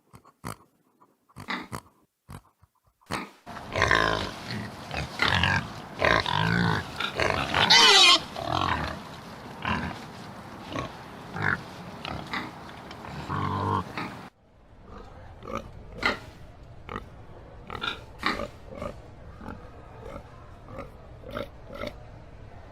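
Domestic pigs grunting: a few short grunts, then about ten seconds of loud squeals and oinks gliding in pitch. About 14 seconds in the sound cuts abruptly to short grunts, roughly one a second, over steady background noise.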